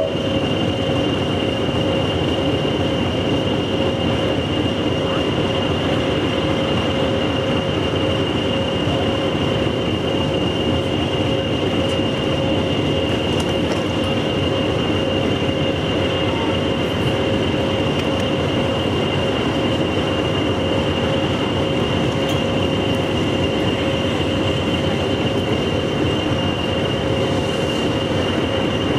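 A railway locomotive running steadily: a constant rumble with a steady high whine over it, unchanging throughout, with no exhaust beats or wheel rhythm.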